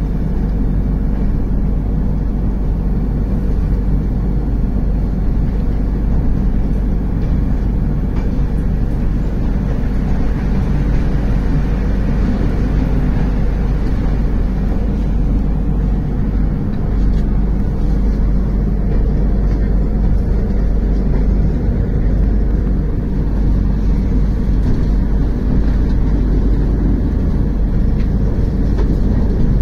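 Steady low rumble of a moving train heard from inside the coach: wheels rolling on the rails and the carriage running.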